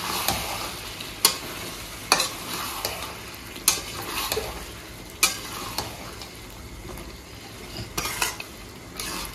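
Metal spatula stirring mutton curry with potatoes in a metal kadai as it fries and sizzles, the curd just stirred in. Sharp scrapes and knocks of the spatula against the pan come every second or two.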